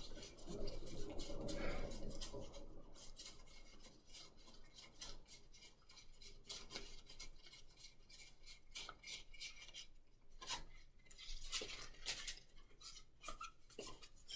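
Slick, plastic-like Galactic Starcruiser Sabacc cards being thumbed through by hand: faint rubbing at first, then scattered soft clicks as cards slide and snap past each other.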